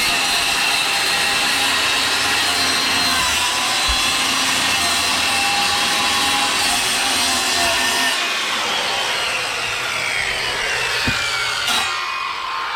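Circular saw cutting through the boat's wooden floor, its blade set to a checked cutting depth; about eight seconds in it comes out of the cut and winds down with a falling whine.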